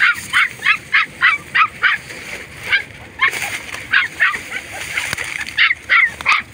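Puppy crying in a fast series of short, high-pitched yelps, about three a second, with brief breaks near the middle.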